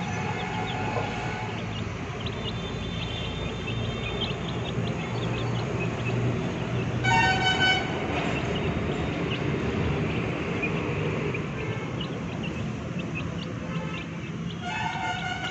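A horn toots briefly about seven seconds in and again near the end, over a steady low rumble.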